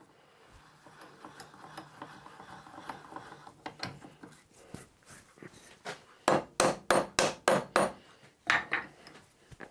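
Copper-and-rawhide mallet tapping a piece of gauge steel down onto a parallel in a milling-machine vise to seat it. There is a quick run of about six sharp taps about two-thirds of the way through, then two more.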